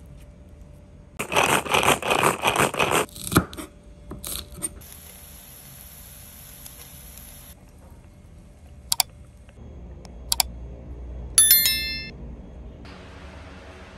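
A wooden spoon scraping and mashing cooked salted egg yolks against a ceramic bowl in quick, loud strokes, followed by a few knocks. After that comes a steady hiss of frying in the pan, two sharp clicks and a short chime, which fit the on-screen subscribe-button animation.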